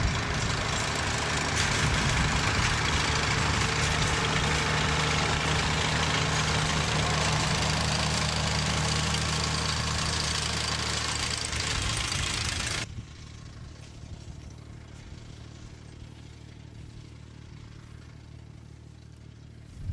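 An engine running steadily under a loud hiss. About thirteen seconds in, the hiss stops suddenly, leaving a quieter low hum.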